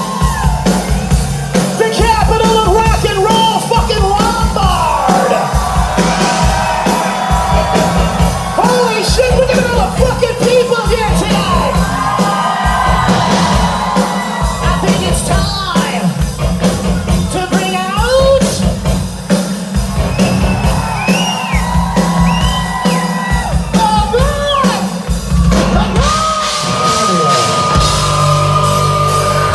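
Live rock band playing loud, with pounding drums and amplified guitars under a high male rock vocal, and the crowd yelling along. Near the end a single high note is held for several seconds.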